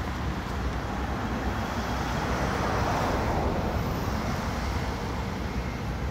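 Steady rushing outdoor background noise with a low rumble, swelling about halfway through and easing off again.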